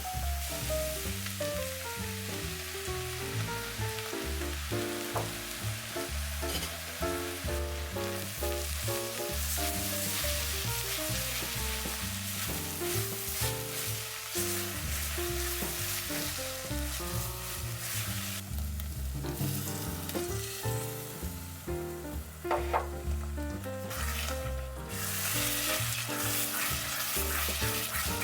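Food frying in a pot of hot oil, sizzling steadily while it is stirred, over background music.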